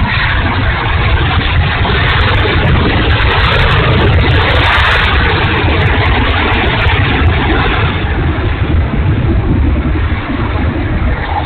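Twin 64 mm electric ducted fans of an RC A-10 jet running at power in flight, a loud steady rush that swells about four to five seconds in and eases slightly near the end. The pilot says a motor is sounding worse again.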